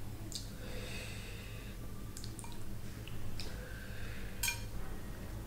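A metal spoon clicks and scrapes against a glass bowl while scooping chickpea curry onto naan, with a few sharp clinks, the strongest near the end. There are soft eating sounds and a low steady hum under it.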